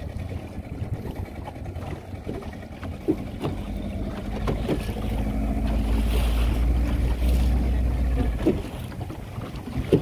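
A 40 hp outboard motor running on a small skiff, growing louder about four seconds in and easing off near the end, with wind on the microphone and a few sharp knocks.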